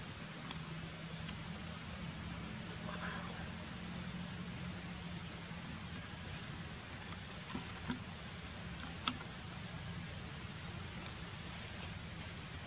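Short, high chirps from a small animal, repeating about once a second and coming quicker near the end, over a faint steady low hum. One sharp click about nine seconds in.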